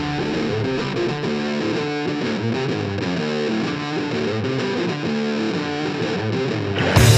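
Background rock music: a guitar riff plays without drums, then the full band comes in louder near the end.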